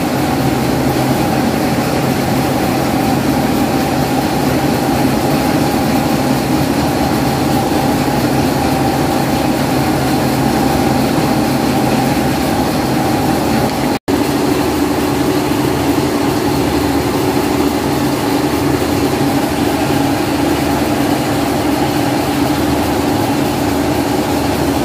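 Rice mill machinery running steadily while milling palay: a loud, even mechanical drone with a constant hum. It cuts out for an instant about fourteen seconds in, then carries on with a slightly different hum.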